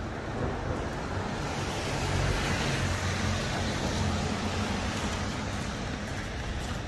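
A motor vehicle passing by: a low engine hum and a rushing noise swell to a peak about halfway through, then slowly fade.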